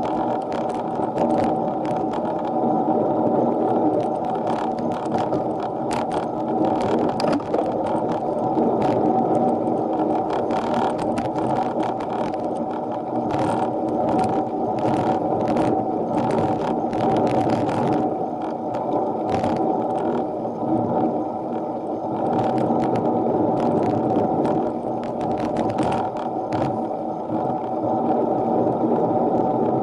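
Mini velo bicycle being ridden up a steep climb, heard through an action camera: a steady, muffled whir of drivetrain and tyres with frequent short rattles and clicks.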